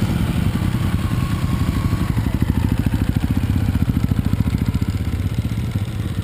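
Dirt-bike engine running close by at low, steady revs, a rapid even low pulse.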